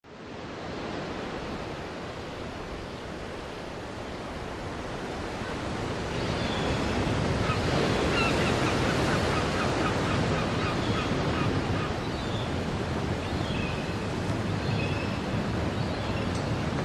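Ocean surf washing onto a beach, a steady rushing that fades in at the start and grows louder about six seconds in. Short high chirps come and go over it from then on.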